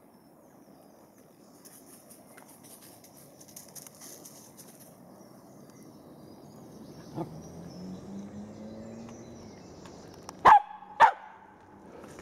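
Two loud, sharp barks about half a second apart, near the end, over quiet woodland background.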